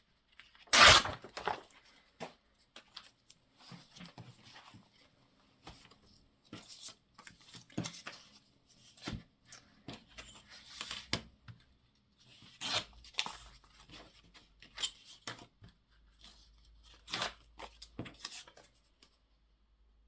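Paper and card pieces being handled on a craft table: scattered rustling, sliding and light taps, with one louder rustle about a second in.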